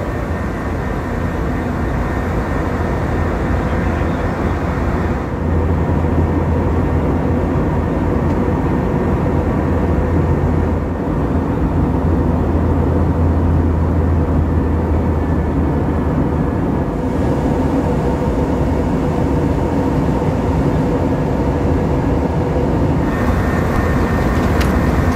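Steady cabin noise of an Airbus A321 in cruise: the even rush of air and a low engine drone heard from inside the cabin. A few light clicks come near the end.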